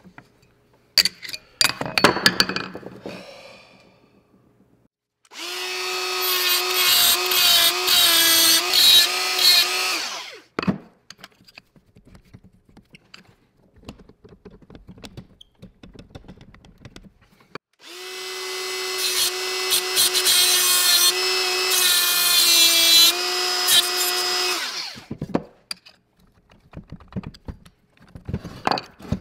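A few sharp taps and knocks on a screw head, then an electric drill runs twice, about five seconds and about seven seconds, with a steady whine that sags a little under load as it bores out the screw holding the handle bracket to the old motor's housing.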